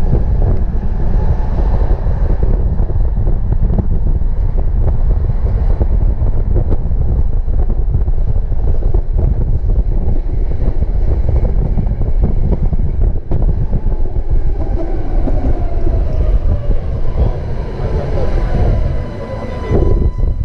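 Budapest tram running along the line, heard from aboard: a steady rumble of wheels on rail, with a whine that falls in pitch over the last few seconds.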